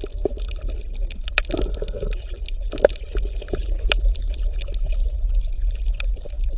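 Water bubbling and gurgling, with many small irregular pops and drips over a steady low hum.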